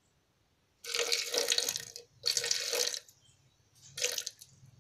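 Water poured in splashing spurts from a plastic dipper into a plastic measuring cup holding lumps of metal: two pours of about a second each, then a short third one.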